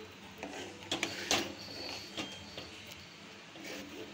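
Steel ladle stirring thick channa masala gravy in a pan, with irregular scrapes and clinks of metal against the pan and soft sloshing.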